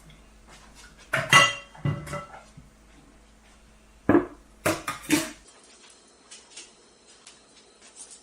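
Dog food bowls clattering: a few sharp knocks and clinks, one ringing briefly about a second in, and another cluster of knocks about four to five seconds in.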